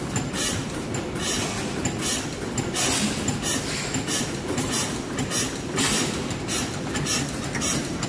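Antique horizontal single-cylinder stationary gas engine with twin spoked flywheels running, its valve gear and ignition making an even clacking about twice a second over a steady low rumble.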